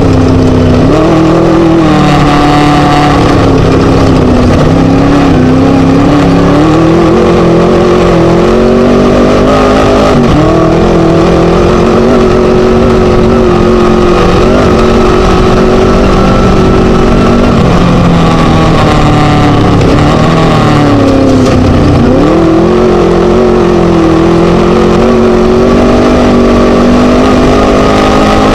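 Scat V4 race engine of a Chenowth class 1 desert buggy running hard and loud, its pitch wavering up and down as the throttle varies. The pitch drops sharply and recovers about ten seconds in, again a little past the two-thirds mark, and once more at the very end.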